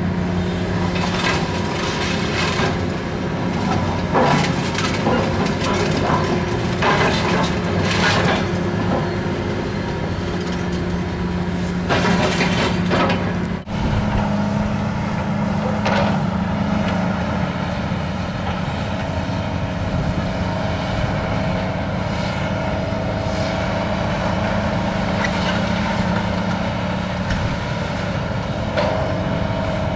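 Komatsu hydraulic excavator's diesel engine running with a steady hum while the machine tears into a building, with repeated crashes and crunches of metal sheeting and debris. The crashes are thickest in the first half; a brief dropout comes about halfway.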